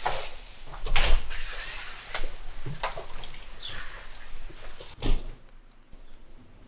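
Footsteps and a door being handled, a string of separate knocks and clacks, ending in a sharp thud about five seconds in as the door shuts.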